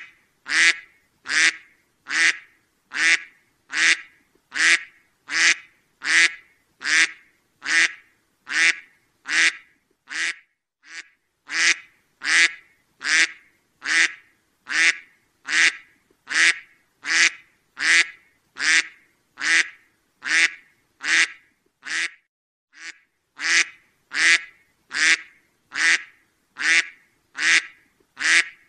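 A duck quacking over and over, single loud quacks evenly spaced at about four every three seconds, with a couple of softer ones about ten seconds in.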